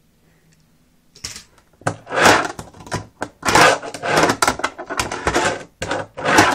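Fingerboard clacking and scraping on a small quarter-pipe ramp right by the microphone: a quick run of loud knocks and rolling scrapes that starts about a second in.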